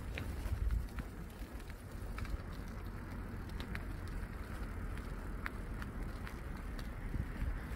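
Wind buffeting the microphone as a steady low rumble, with a few faint scattered clicks.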